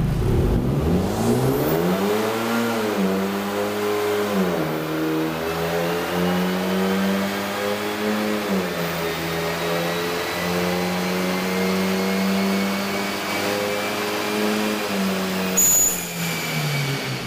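Hyundai Genesis Coupe with an automatic gearbox making a full-throttle pull on a chassis dyno. The engine note climbs and steps down in pitch several times as the gearbox shifts up, over a thin whine that rises steadily through the pull. Near the end there is a short sharp hiss as the run ends.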